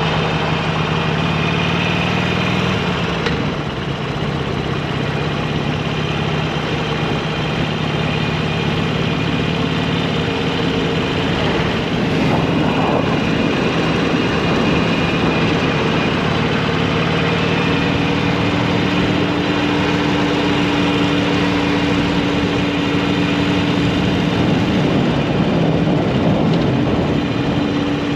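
Motorcycle engine running steadily on the move, under a steady rush of wind and road noise; the engine note shifts about two-thirds of the way through.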